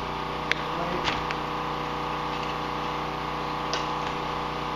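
A few sharp clicks and ticks as parts are handled on a snowmobile, the loudest about half a second in, over a steady machine hum.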